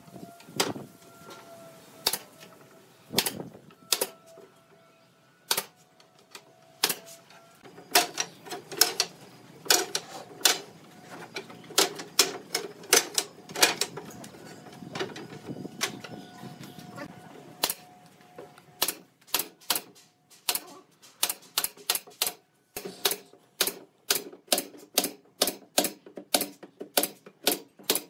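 Pneumatic nail gun firing nails into pine pallet boards, each shot a sharp crack. Scattered shots come first, with softer knocking of boards being laid midway, then a quick run of shots about two a second in the last third.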